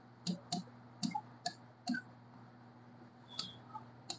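Marker pen tapping and scraping on a writing board as words are written: a scatter of short, faint clicks, with a brief high squeak about three and a half seconds in.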